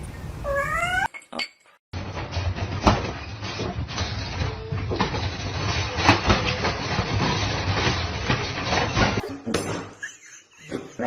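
A cat gives a short meow in the first second, followed by several seconds of clinking and clattering with a couple of sharp knocks.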